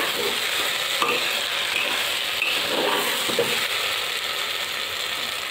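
A metal ladle stirring and scraping rice and vegetables in a pressure cooker pot, over a steady sizzle of frying.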